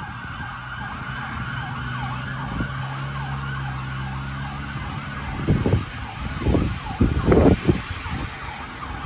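Emergency vehicle siren yelping in rapid sweeps, about four a second, as the vehicle drives away and the siren fades. A car engine hums for a few seconds. In the second half come several loud low rumbles, the loudest sounds.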